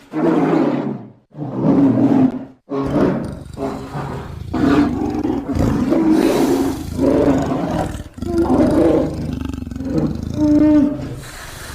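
Creature sound effect built from bear recordings, polar bear and sloth bear among them: a string of loud, deep roars, two short separate ones first, then longer overlapping roars with a low rumble under them from about three seconds in.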